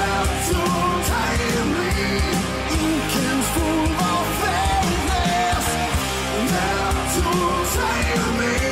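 Rock song playing, with a singer's voice over guitar and drums.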